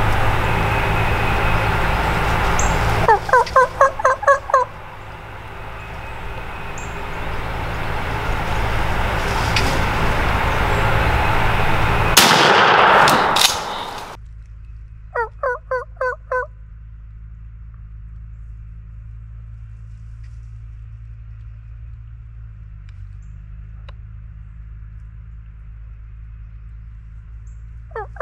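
Wild turkey gobbler gobbling: a rapid rattling gobble about three seconds in, another about fifteen seconds in, and a third starting near the end. A loud rushing noise about twelve seconds in is as loud as the first gobble.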